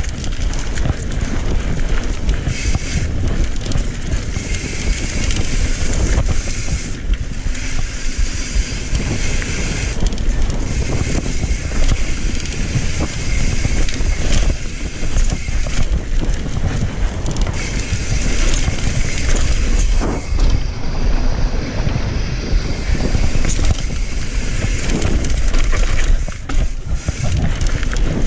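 Mountain bike descending a dirt singletrack, heard on an action camera: wind buffeting the microphone and tyres rolling over dirt and rock, with frequent knocks and rattles from the bike over rough ground.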